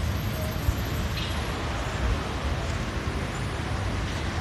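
Steady urban traffic noise, an even roar with a fluttering low rumble.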